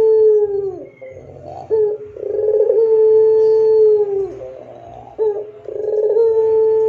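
White Barbary dove (puter pelung, the long-calling domestic collared dove) cooing: each call is a short note followed by a long, clear, held coo that drops in pitch at the end. One coo ends about a second in, a full call follows about two seconds in, and another starts near the end.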